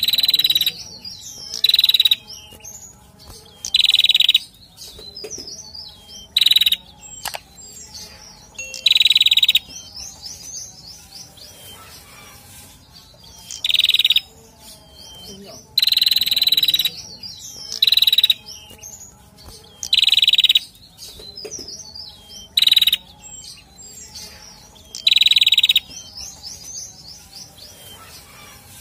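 Male prenjak singing: about a dozen loud, sharp bursts of rapid high notes, each under a second long and coming every two seconds or so, with softer chirping in between.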